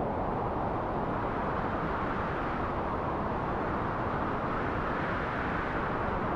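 Steady wind blowing, a continuous low rush that swells slightly near the end.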